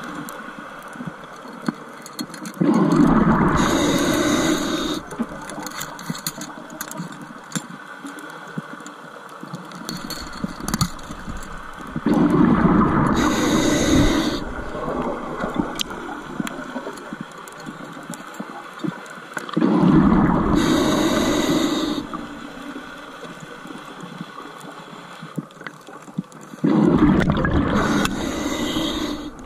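Diver's breathing heard underwater: a rush of exhaled bubbles from the regulator about every seven seconds, four times, each lasting about two seconds. Between the bursts there is a quieter hiss with faint scattered clicking.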